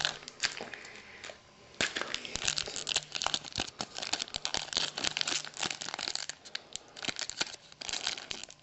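Wrapper of a trading-card pack being crinkled and torn open by hand. There is a dense run of crackles from about two seconds in.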